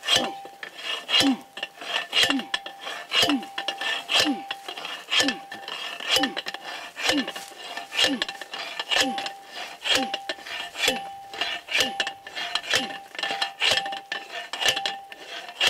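Hand-made one-arm T-post driver pounding a steel fence T-post into the ground, about one strike a second, each clang followed by a short metallic ring.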